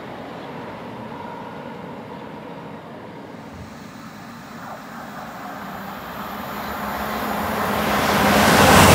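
A train running through the station without stopping, its rushing noise swelling steadily as it approaches over the second half and loudest at the end.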